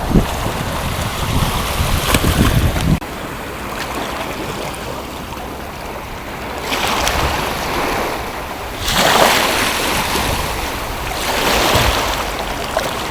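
Sea waves washing onto a beach, rising and falling in swells about every two to three seconds. Wind buffets the microphone with a low rumble for the first three seconds, which then cuts off abruptly.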